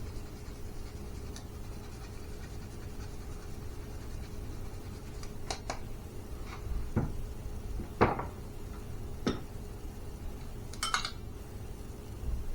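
Kitchen clatter: dishes and utensils knocking and clinking a handful of times, the loudest knock about eight seconds in, and a short scrape near the end, over a steady faint hum.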